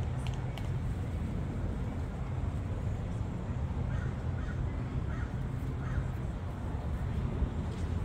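A crow cawing four or five times in quick succession, about halfway through, over a steady low rumble.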